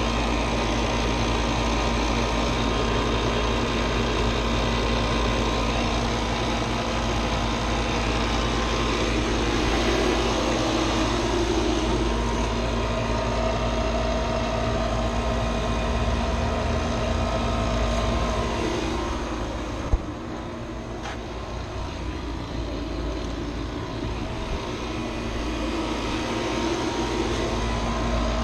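A motor-driven machine running steadily with a constant low hum. About two-thirds of the way through there is a single sharp click, after which it runs a little quieter.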